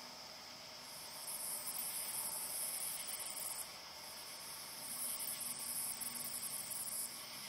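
Chorus of night insects trilling in high, shrill bouts: one from about a second in to near four seconds, another from about five seconds to seven, over a steadier high insect drone.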